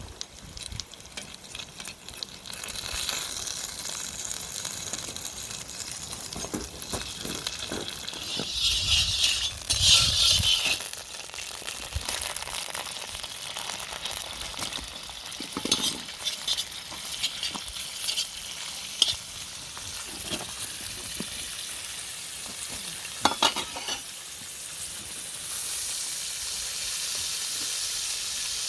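Food sizzling on a grill over a fire pit, a steady hiss with scattered clicks and a louder rasping stretch about nine seconds in.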